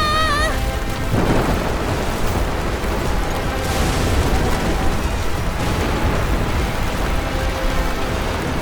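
Tornado sound effect: a dense, steady rumble of wind and debris, heaviest in the low end, with a faint music score underneath. A held scream cuts off about half a second in.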